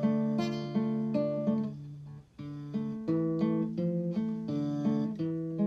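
Background music: plucked acoustic guitar playing a melody of short, ringing notes, with a brief break about two seconds in.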